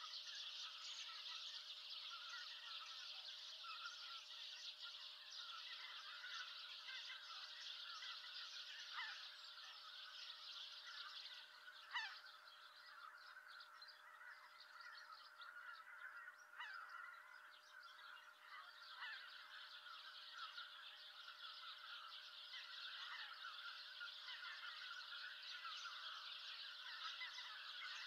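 A distant flock of greater white-fronted geese calling, many high honking calls overlapping in a continuous chorus that thins a little in the middle and swells again near the end. A single sharp click about twelve seconds in.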